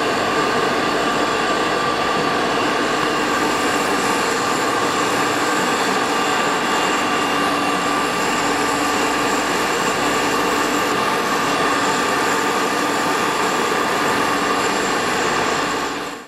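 Peanut butter grinder (colloid mill) running steadily under load, a continuous machine noise with several steady whining tones over it. It fades out near the end.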